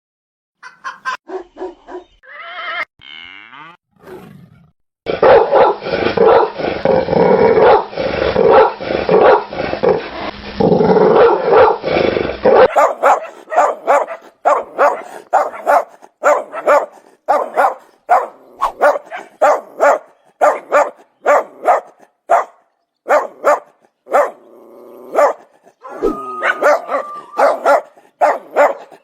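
Dogs barking in a series of separate recordings: a few short barks, then several seconds of dense, loud barking, then a long run of sharp single barks about one and a half a second, broken near the end by a lower drawn-out growl-like sound.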